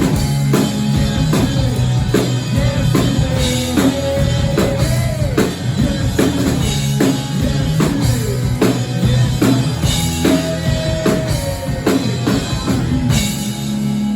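Live rock band playing: drum kit and electric guitars, with bending guitar notes over the beat. Near the end the drums stop and a held chord rings on.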